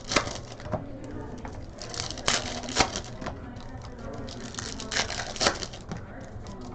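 Trading cards and foil packs being handled: irregular sharp clicks and crinkles as cards are flicked and sorted, a few sharper snaps standing out, over a steady low hum.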